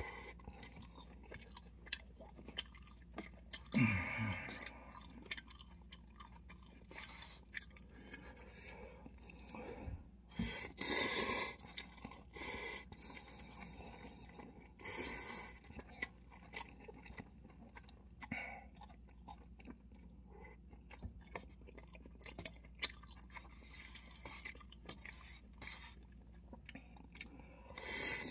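Close-up eating of instant cup ramyeon: wet chewing and mouth clicks throughout, with several louder slurps of noodles, about eleven seconds in, around fifteen seconds and near the end. A brief low voiced sound about four seconds in.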